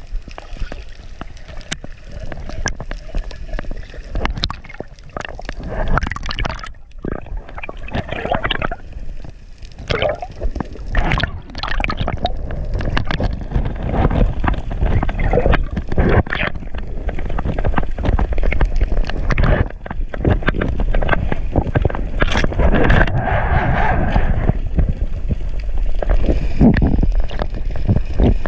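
Seawater sloshing and gurgling around an action camera's waterproof housing as it moves at and below the surface, with a steady low rumble and irregular splashy surges.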